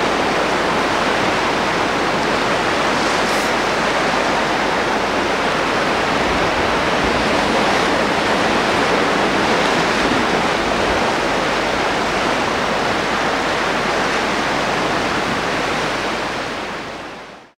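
Steady rushing of sea surf and coastal wind, fading out quickly near the end.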